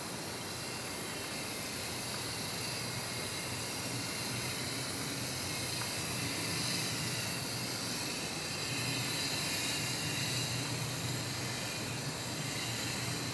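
Steady underwater noise picked up by a camera in its waterproof housing: an even hiss with a low hum beneath it.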